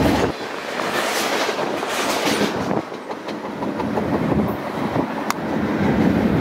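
Train rolling past on the rails, wheels clacking over rail joints, with a single sharp click about five seconds in.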